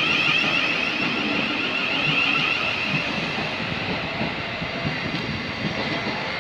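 Thameslink Class 700 electric multiple unit moving slowly along the platform: steady rolling noise with a high whine running through it.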